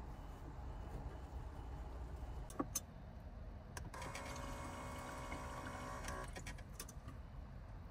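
A sharp click about two and a half seconds in, then water running from a small faucet into a steel mug for about two seconds, with a steady hum of several tones along with it.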